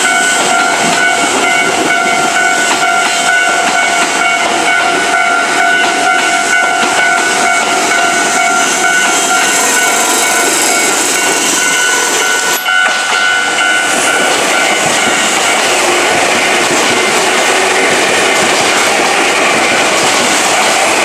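Level-crossing warning bell ringing with a steady electronic tone. About ten seconds in, a passing train's running noise builds and drowns the bell.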